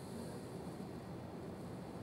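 Faint steady low hum and hiss with no distinct events: room tone.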